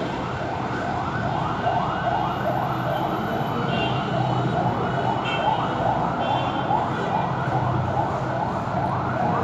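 Emergency-vehicle siren in a fast yelp, its pitch sweeping up about twice a second, over the steady rumble of busy road traffic.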